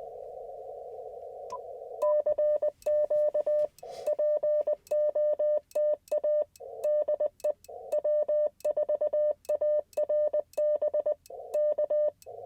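Morse code sidetone from an Icom IC-705 sending CW: a steady mid-pitched tone keyed on and off in dots and dashes for about ten seconds, starting about two seconds in. Receiver band hiss through a narrow CW filter comes before it, is muted between the elements while the rig transmits, and returns at the very end.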